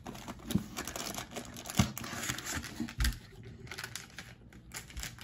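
Plastic snack wrappers crinkling and rustling as a hand rummages through them in a cardboard box, with a few dull thumps along the way.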